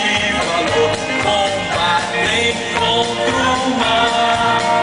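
Live gospel music played loudly through a PA: a man singing into a microphone over a band with a steady beat.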